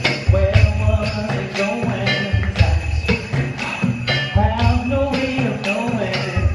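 Live music with no singing: a steady beat of low drum thumps and jingling bell shakes, with a wavering pitched part weaving over it.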